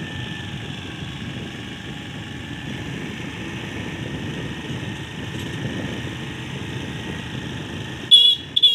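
Motor scooter running along a paved lane with steady engine, tyre and wind noise. Near the end come two short, loud, high-pitched horn beeps.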